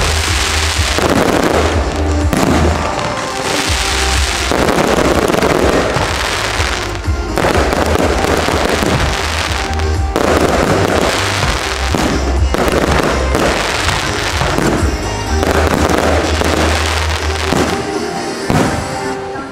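Aerial fireworks going off in rapid, near-continuous volleys of bangs, with only brief lulls, over show music.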